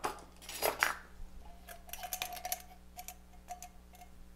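Small stainless steel bowl clinking and scraping against a large stainless steel mixing bowl as salad dressing is emptied into it: a few brushing scrapes near the start, then a quick run of light metal taps with a faint ringing.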